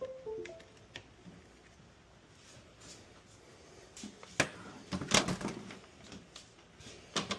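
A short falling run of electronic beeps at the start, then scattered clicks, knocks and clatter of cables, a power brick and parts being handled on a laser engraver's metal honeycomb bed, loudest about four to five and a half seconds in and again near the end.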